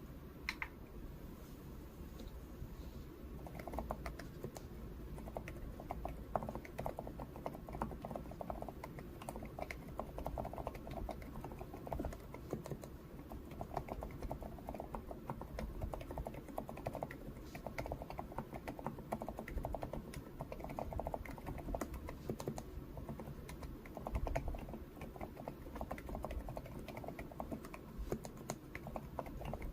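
Typing on a Lofree Flow Lite mechanical keyboard with Void silent linear switches: a steady stream of soft, muted keystrokes with little click.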